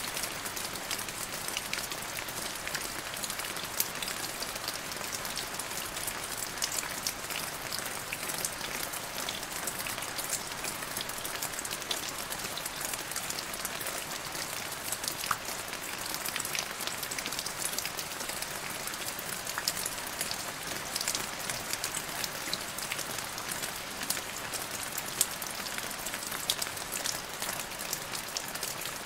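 Steady gentle rain falling: an even hiss with many small, sharp drop ticks scattered through it.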